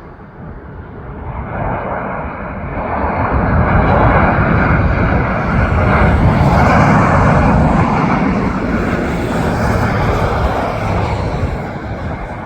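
Boeing 737 MAX 8 airliner flying past on arrival, its jet engines swelling in about two seconds in, loudest midway, and fading near the end.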